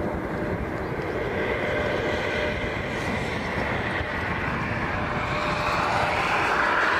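Jet airliner engine noise, a steady rushing sound with a faint steady tone, growing louder toward the end.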